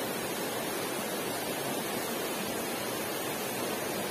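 Steady rushing of flowing river water, an even hiss with no distinct events.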